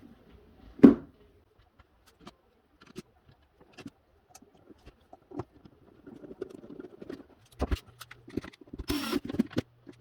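Handling of a plastic power-tool battery pack and its screws: scattered light clicks and taps, with one sharp knock about a second in. Near the end come denser scraping and rustling.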